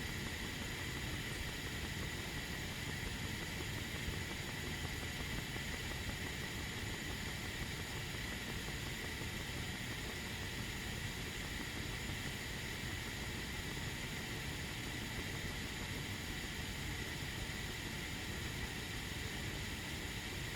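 Steady hiss and low rumble of a tea kettle heating on the stove, early on and well before the boil, with a faint constant tone in the noise. No whistle yet.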